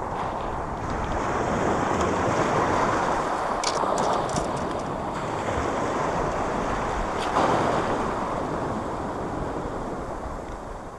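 Small sea waves washing in and drawing back over a pebble beach, swelling and easing with each surge, with wind buffeting the microphone. A few short clicks sound about four seconds in and again about seven seconds in.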